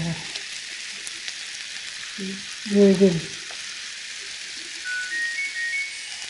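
Steady sizzle of food frying in a hot pan. A person's voice speaks briefly, loudest about three seconds in, and a short run of high electronic beeps, stepping up in pitch, sounds near the end.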